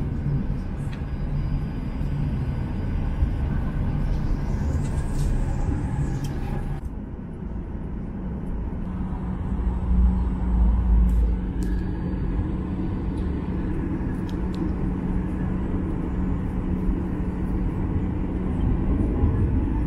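Jet airliner cabin noise: the steady drone of the engines with the low rumble of the wheels on the runway, which swells about halfway through as the plane rolls fast down the runway.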